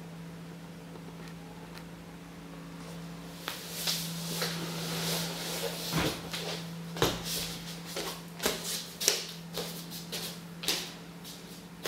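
Short scraping and brushing strokes of painting tools on a canvas, with scattered clicks and knocks, starting about three and a half seconds in, over a steady low hum.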